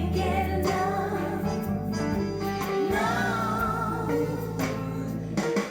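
Music with singing and a steady bass line, played back through Kenwood LS1800 loudspeakers on a Sansui AU-555A amplifier.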